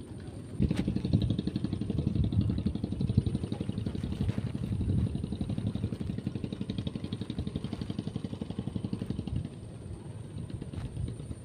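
A small engine running with a rapid, even beat; it starts about a second in and drops away near the end.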